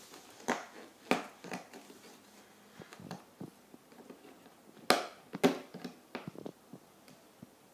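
Hands handling a cardboard toy box and picking at its sticky tape: scattered crackles and taps, with two sharper clicks about half a second apart around five seconds in.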